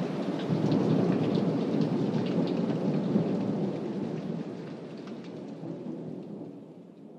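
Rain falling with thunder rumbling, fading out steadily over the last few seconds.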